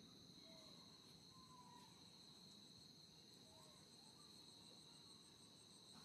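Faint, steady, high-pitched insect chorus trilling without a break, with a few faint short chirps now and then.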